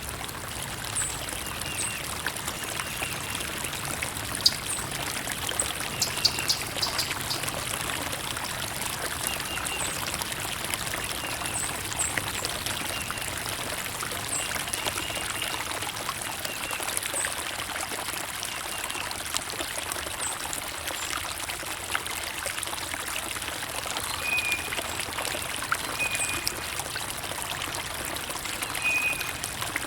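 Water trickling and pouring steadily, like a small stream. Short high bird chirps repeat every second or two.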